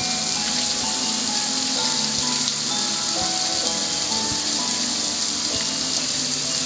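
Steady hiss of water spraying from a garden hose nozzle onto a metal gas grill, with background music playing underneath.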